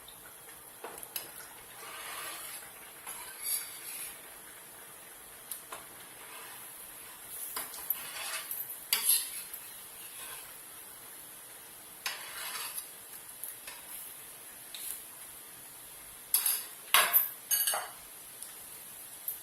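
Shakkar para dough pieces frying in hot oil with a steady faint sizzle, while a metal spoon stirs them and now and then clinks and scrapes against the pan. A quick run of sharp clinks comes near the end.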